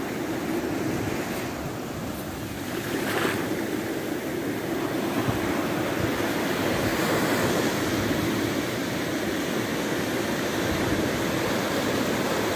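Small sea waves breaking on a sandy beach, with foam washing up and running back over the wet sand in a steady rush of surf.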